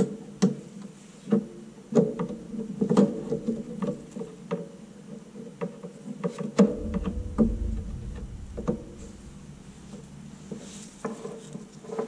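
Irregular clicks, taps and light knocks of plastic and metal as the all-in-one's blower cooling fan is handled and fitted against the motherboard, over a low steady hum. A low rumble runs under it for a couple of seconds past the middle.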